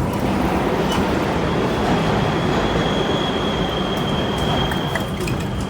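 R32 subway car running through the tunnel, heard from inside the car: a loud, steady rumble of wheels on rail. About a second and a half in, a thin, steady high wheel squeal comes in and holds, and a few sharp clicks come near the start and near the end.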